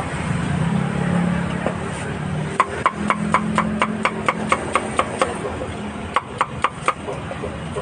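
Cleaver chopping meat on a wooden chopping block: a run of sharp chops at about four a second, a short pause, then four more. A low steady hum runs underneath.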